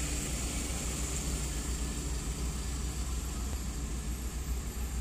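Steady low rumble of a car's engine and road noise heard from inside the cabin in slow city traffic.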